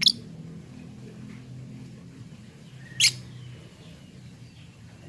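Lovebird giving two short, shrill chirps about three seconds apart, one at the start and one about three seconds in, over a low steady hum.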